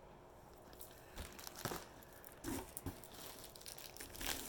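Packing material crinkling and rustling in short, irregular bursts, starting about a second in, as the contents of a mailed box are handled.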